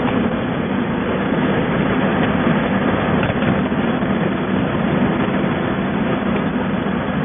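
Heat shrink packaging machine's shrink tunnel running: a steady rushing hum from its hot-air circulation and mesh conveyor, with a few faint clicks.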